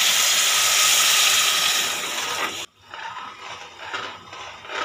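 Hot onion-tomato masala sizzling and hissing loudly in a kadai as water hits it; the hiss cuts off suddenly about halfway. Quieter scraping of a metal spoon stirring the watery gravy follows.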